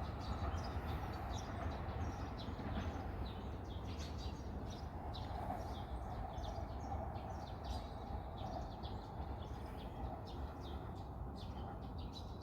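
Small birds chirping repeatedly in short, quick calls over a steady low background hum of city noise. The chirps thin out near the end.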